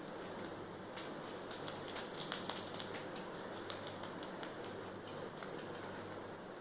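Rabbits chewing dry corn husk: a fast, irregular run of crisp crunching clicks, several a second.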